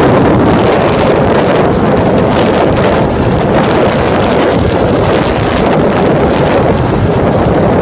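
Loud, steady wind rushing over the microphone of a motorcycle moving at highway speed.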